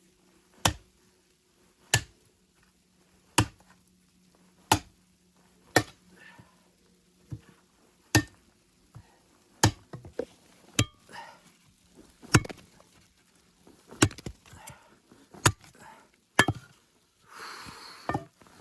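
Steady chopping: single sharp blows on wood, about one every one to two seconds, each with a short ring after it.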